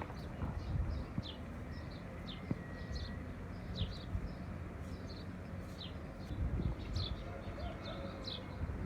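Small birds chirping: a string of short, high, falling chirps about once or twice a second, over a steady low rumble.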